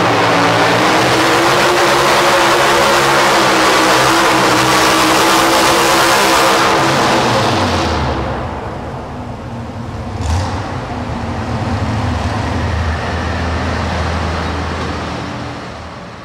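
Pro stock four-wheel-drive pulling truck's engine running flat out under load, then dropping to a low rumbling idle about eight seconds in as the pull ends. A brief sharp pop comes about ten seconds in, and the engine sound fades near the end.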